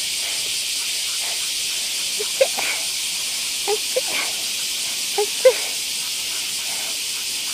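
Steady high-pitched hiss of a summer cicada chorus, with a few short chirps between about two and six seconds in.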